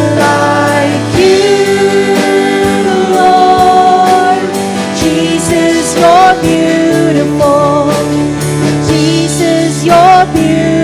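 Live worship band music: a vocalist sings long held, wavering notes with slides between pitches over sustained chords and a steady beat.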